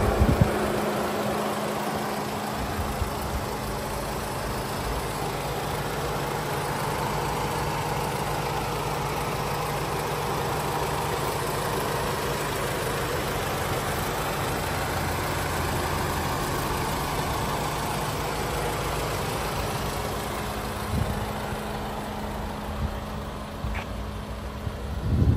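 Volkswagen Golf 7 GTI's 2.0 TSI turbocharged four-cylinder engine idling steadily with the bonnet open.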